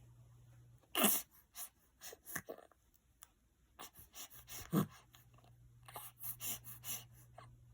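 A sleeping newborn baby's noisy breathing: short snores and grunts. The loudest comes about a second in and drops in pitch, another near five seconds, and a quick run of them near the end.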